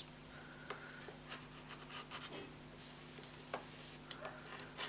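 A nail-stamping scraper is drawn across a metal image plate, scraping off excess stamping polish with a faint scratchy rasp. A few soft clicks come from handling the scraper and plate.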